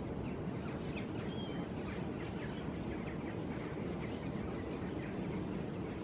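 Flock of common starlings chattering from overhead wires: many short, faint chirps and squeaks, with a brief whistle about a second and a half in, over a steady low rumble.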